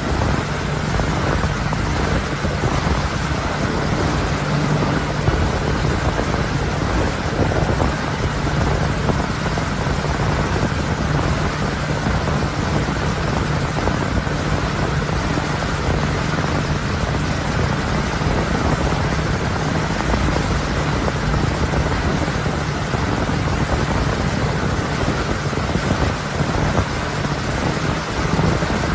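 A motorboat's engine running steadily at speed, with a steady low drone, under heavy wind buffeting on the microphone and the rushing of the boat's wake.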